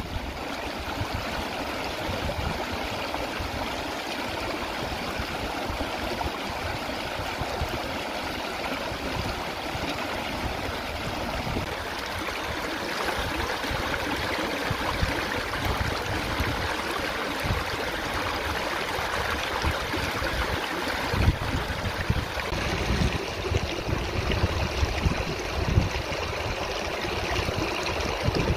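Shallow seawater rushing and gushing between seaweed-covered rocks on a shore, a steady splashing flow. Irregular low thumps on the microphone come in over the last third.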